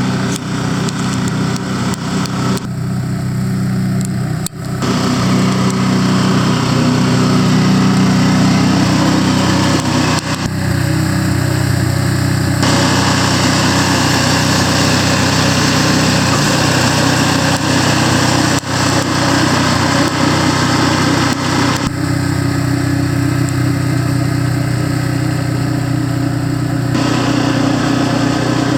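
Small gasoline engine of a snowblower running steadily, with a higher hiss over it that drops away three times for a couple of seconds each.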